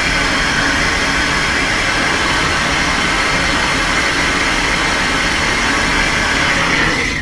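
Plumbing torch flame hissing steadily while it heats a copper water-heater relief-valve drop pipe to soften it for bending; it cuts off at the very end.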